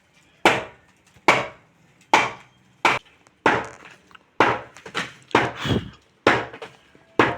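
About ten heavy blows at a steady pace of roughly one a second, each a sharp hit with a short ring-out, like a tool striking wood.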